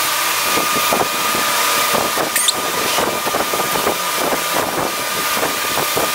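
Hose spray nozzle running: water hissing out with a steady high tone and splattering on a horse's coat and the wash-stall floor.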